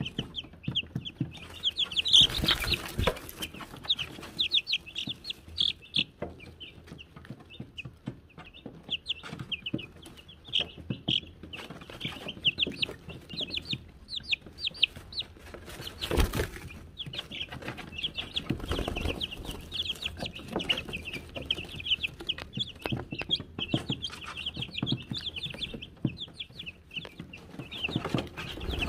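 A brood of Wyandotte chicks peeping continuously: many short, high, falling cheeps overlapping one another. A few louder rustles and knocks cut in, the loudest about two seconds in and another about halfway through.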